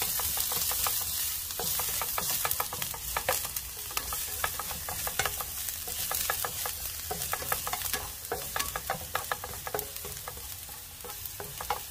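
Minced garlic sizzling as it fries in a copper-coloured nonstick pan, being browned. Frequent light clicks and scrapes come from a black plastic slotted spatula stirring it across the pan.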